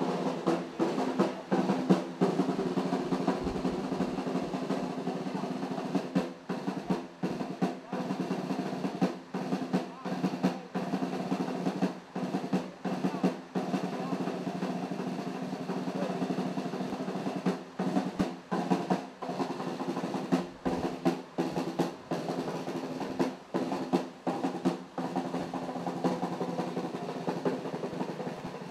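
Military pipe band playing a march: bagpipes sound steady drones under the tune while a snare drum beats the marching rhythm.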